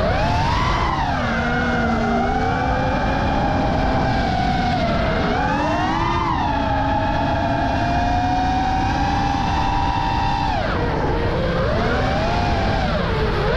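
Brushless motors and propellers of a 5-inch FPV racing quadcopter whining, the pitch rising and falling with the throttle. It holds high for several seconds, then drops sharply a few seconds before the end. A steady rush of wind noise runs underneath.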